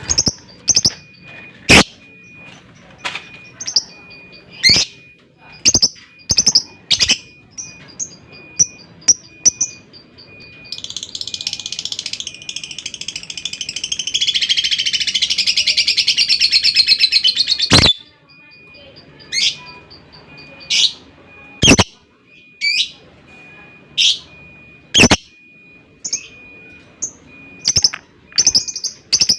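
Lovebird calling with short, sharp chirps, then a long rapid chattering trill (the lovebird's "ngekek") lasting about seven seconds, growing louder before it cuts off suddenly; the sharp chirps then resume.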